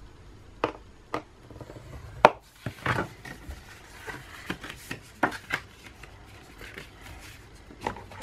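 Sheet of patterned scrapbook paper being folded and creased by hand along a scored line on a scoring board: a series of short paper rustles and sharp taps, the loudest about two seconds in.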